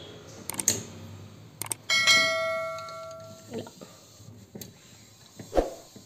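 A few quick mouse clicks, then a bright bell ding that rings out and fades over about a second and a half: a subscribe-button sound effect. Soft thumps of a cloth against the fridge's plastic lining follow.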